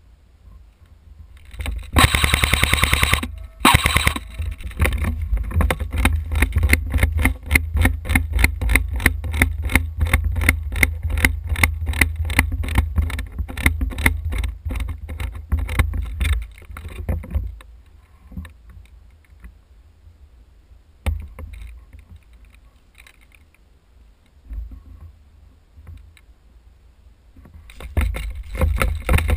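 Airsoft gun firing: a loud rapid full-auto burst about two seconds in, then a long string of evenly spaced single shots, about three a second, that stops some sixteen seconds in. After a lone shot, there is rustling and rumble on the microphone near the end as the player moves.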